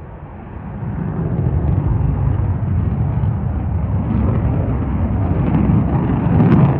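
Jet aircraft flying past: a low rumble that builds about a second in and grows toward the end, with a few sharp crackles near the end.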